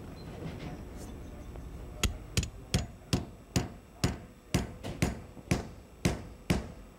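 Claw hammer striking a part under a car's dashboard in a steady series of sharp blows, about two a second, starting about two seconds in.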